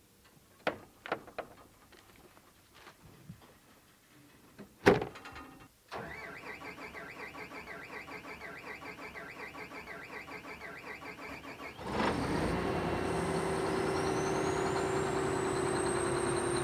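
A few clicks and a loud thud, then a farm machine's engine cranking on the starter with an even pulsing for about six seconds. It catches about twelve seconds in and runs steadily, with a whine that rises in pitch as it comes up to speed.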